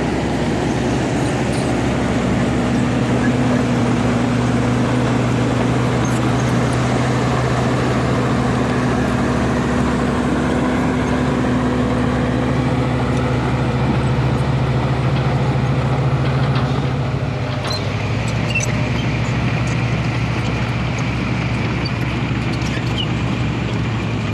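Diesel engine of heavy road-construction machinery running steadily, its pitch stepping down and back up in the second half, with faint scattered clicks.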